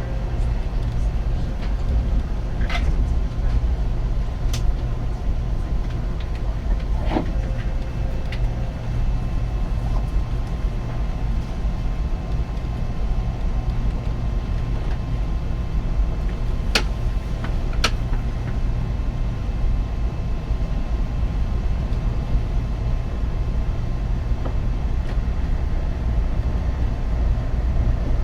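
Steady low rumble of a train running, with a few brief sharp clicks and squeaks scattered through it.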